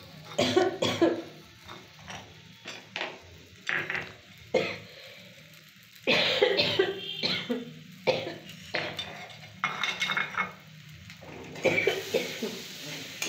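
Flat metal spatula scraping and knocking against a metal kadai as dry-cooked potatoes are stirred, in irregular strokes with short pauses between them.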